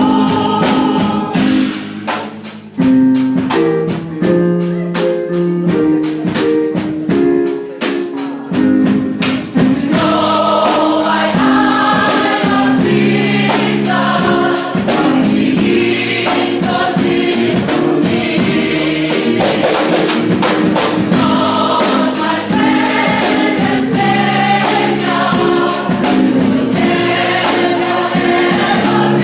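A worship song sung by a choir with instrumental accompaniment and a steady beat, thinner at first and fuller from about ten seconds in.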